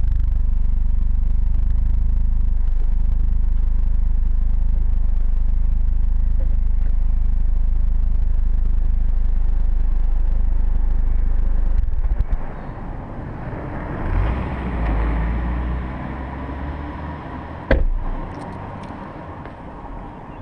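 Audi TT-S 2.0-litre turbocharged four-cylinder idling steadily, heard through the exhaust. It cuts off about twelve seconds in, as if switched off, leaving a fainter rushing noise and a single sharp knock near the end.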